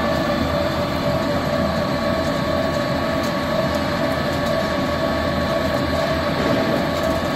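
Small biomass pellet mill running steadily as sawdust is fed into its hopper: a constant machine hum with a steady whine from the motor and gearbox.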